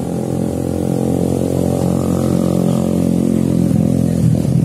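A woman's voice in melodic Qur'an recitation (tilawah), holding one long sustained note that shifts near the end.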